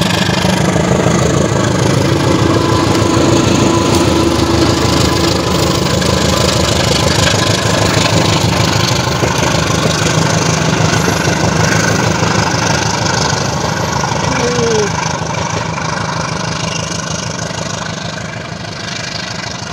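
Diesel locomotive and its passenger coaches passing at close range: the engine's drone, then the steady rumble and clatter of wheels on the rails, slowly fading as the train moves away near the end.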